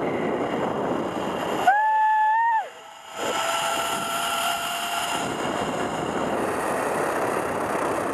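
Zip-line trolley running fast along the steel cable, with a steady rushing hiss of wind over the microphone. A brief high tone comes about two seconds in, and then a thin steady whine for a few seconds as the pulley runs.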